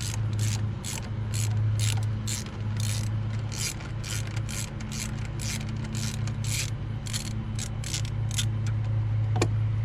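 Ratchet wrench backing out a loosened thermostat-housing bolt, its pawl clicking in quick, even strokes of about two to three a second that stop shortly before the end. A steady low hum runs underneath.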